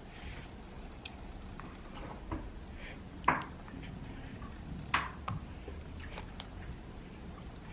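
Baby's mouth smacking while drinking pear juice: a scatter of short smacks, the two loudest about three and five seconds in.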